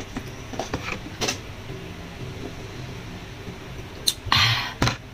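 A person eating noodle soup makes soft clicks and chewing noises in the first second or so. About four seconds in comes a short, loud, breathy mouth sound, the loudest thing here. A low steady hum runs underneath.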